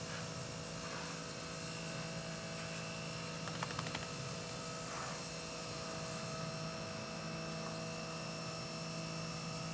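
A steady hum made of several held tones, with a few faint clicks about three and a half seconds in.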